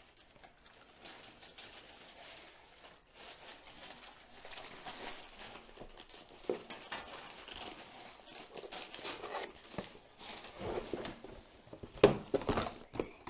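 Cardboard and paper packaging rustling and scraping as a boxed electric spin scrubber is unpacked by hand, with a few sharp knocks near the end.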